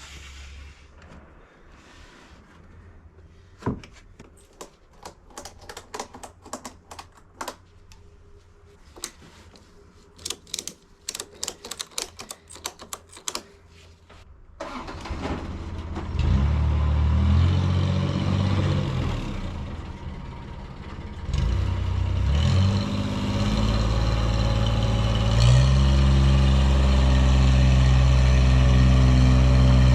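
Scattered knocks and clatters of wood being handled, then about halfway through an engine starts and runs loudly, its speed stepping up and down as it is worked.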